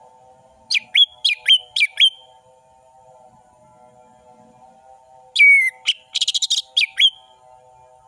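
Orange-headed thrush singing two phrases of sharp, down-slurred whistled notes, the second, about five seconds in, with a fast trill in the middle. A faint steady hum runs underneath.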